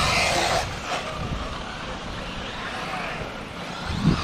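Several 1/8-scale RC buggies and truggies racing around a dirt track, their motors whining and rising and falling in pitch as they accelerate and brake. There is a low thump near the end.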